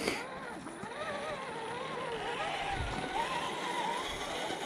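Electric motor and geared drivetrain of a 1/10-scale RC crawler whining as it crawls, the pitch wavering up and down with the throttle. A click right at the start and a short low thud about three seconds in.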